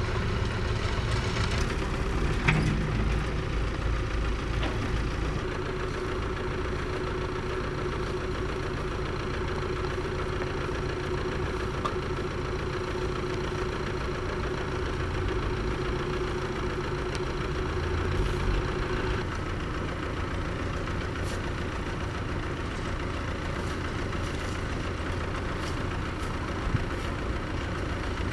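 Heavy road-works machine's diesel engine idling steadily, with a single sharp knock about two and a half seconds in.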